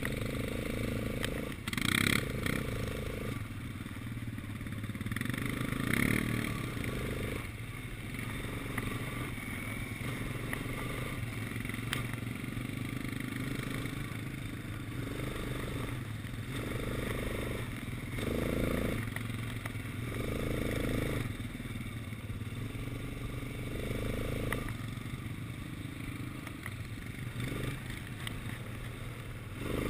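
Quad bike engine running close under the rider, its note rising in repeated surges every few seconds as the throttle is opened and eased off while riding over rough grass.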